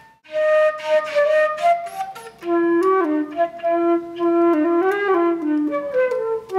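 Silver concert flute playing a solo melody, starting about a third of a second in: quicker, higher notes first, then lower, longer held notes.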